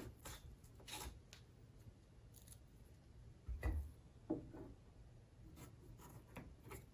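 Small paring knife cutting shallow flakes of peel off a raw potato: faint, scattered crisp cuts and scrapes, with a soft knock a little past halfway.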